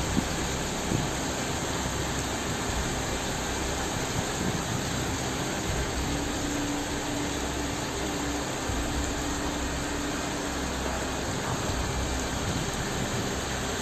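A steady rushing noise with no breaks, with a faint low hum in the middle of it.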